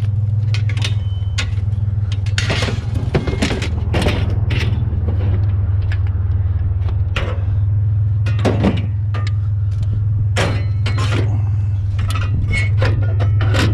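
Scrap metal pieces clanking and rattling against each other as they are picked up and loaded, in irregular knocks throughout. A vehicle engine idles steadily underneath.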